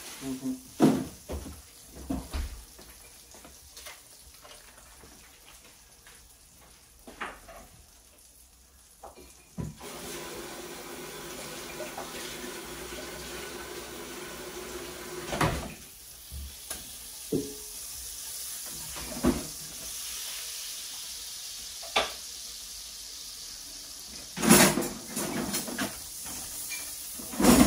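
Margarine melting and sizzling in stainless steel pans on an electric stove: a steady hiss that sets in about ten seconds in, with scattered knocks and clatter of kitchenware. Near the end a silicone spatula scrapes around in one of the pans.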